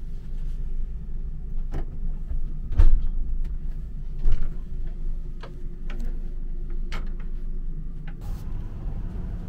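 Scattered clicks and knocks from a hinged panel in a sleeper compartment being handled, the loudest about three seconds in and another a second and a half later, over a steady low rumble of the train.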